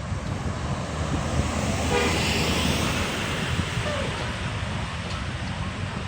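Heavy engine and road rumble of passing traffic, with a brief bus horn toot about two seconds in and a fainter tone near four seconds.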